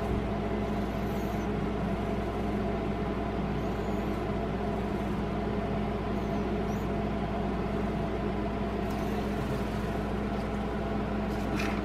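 Steady low hum with hiss: constant background room noise. No distinct ticking stands out. A few faint clicks come near the end.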